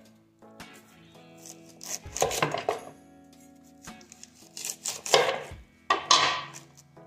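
A large kitchen knife cutting through a red cabbage: three drawn-out cuts about two, five and six seconds in, with small knocks between them.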